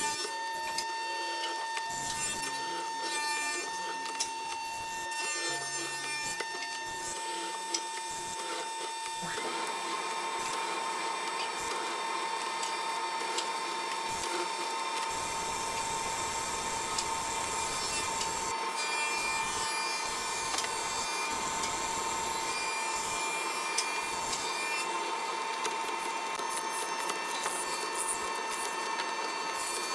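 Benchtop mortising machine running, its bit cutting a mortise into a hardwood table leg: a steady motor whine over the grinding of the cut, which grows louder and denser about nine seconds in.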